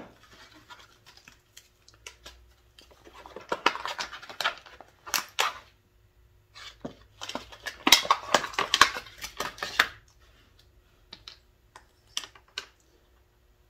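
Plastic packaging of a razor knife and its replacement blades crinkling and clicking as it is handled and opened, in two bursts a few seconds long, then a few sharp separate clicks near the end.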